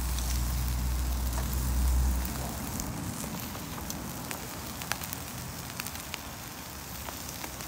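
Barbecue grill fire crackling with a steady sizzle, sharp pops now and then. A low rumble runs under it for the first two seconds, then stops.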